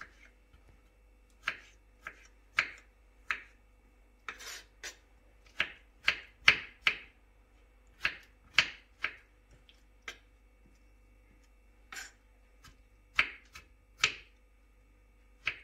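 Small kitchen knife dicing peeled tomatoes on a wooden cutting board: irregular sharp taps of the blade striking the board, about one or two a second, with a pause of about two seconds past the middle.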